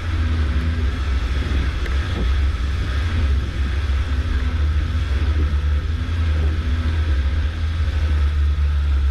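Engine of a Suzuki SJ413 off-roader running as it drives, a steady low drone with a faint engine note rising and falling a little above it.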